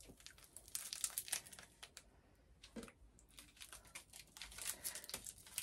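Shiny plastic wrapper of a wafer candy bar crinkling and tearing as it is pulled open by hand: a string of soft crackles with a brief lull about two seconds in.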